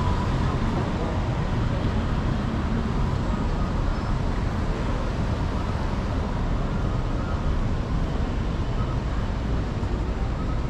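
Steady city traffic noise, a low rumble with no single event standing out.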